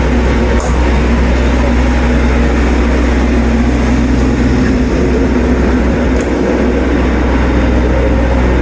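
Home standby generator's engine running steadily close by, a loud, deep, even hum.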